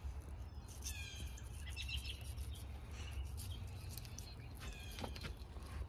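Birds chirping, a few short calls about one and two seconds in and again near the end, over a low steady rumble.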